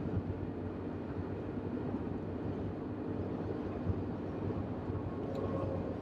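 Steady low road and engine rumble inside the cabin of a moving car.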